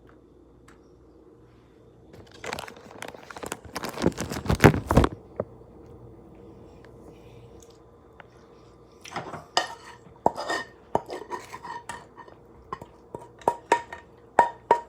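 Cutlery clattering against dishes: a burst of clatter about two to five seconds in, then from about nine seconds a run of sharp clinks with a short ring.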